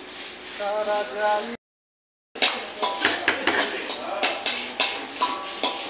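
Steel ladle scraping and clinking against a metal wok while stirring fish curry, a quick irregular run of sharp clinks and scrapes. The sound cuts out completely for under a second before the clinking starts.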